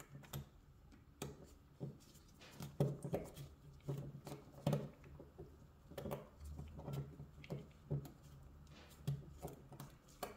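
Irregular light clicks and scuffs of gloved hands threading a small screw by hand onto a Glock recoil spring guide rod assembly.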